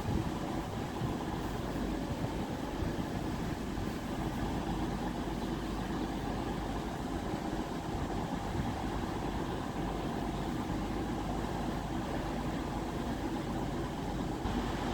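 An engine idling, a steady low hum that holds without change.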